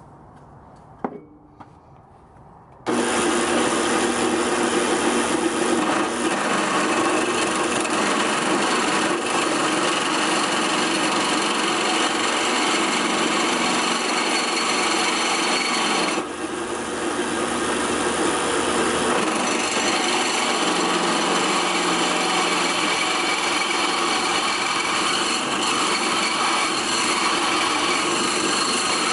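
Modified drill press with a DC treadmill motor starting up about three seconds in and running steadily under load as a 7/16-inch bit cuts through quarter-inch steel, with a whining motor and a scraping cutting noise. It eases briefly about halfway through. A single knock comes shortly before it starts.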